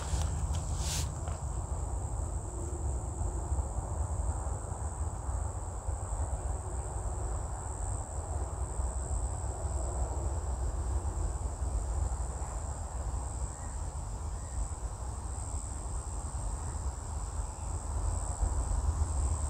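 Insects buzzing steadily at one high pitch over a constant low rumble, with two sharp clicks about a second apart at the start.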